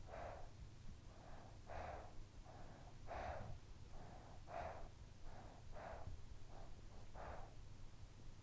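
A young child breathing softly in sleep: an even rhythm of faint breaths, a louder one about every second and a half with a weaker one between each pair.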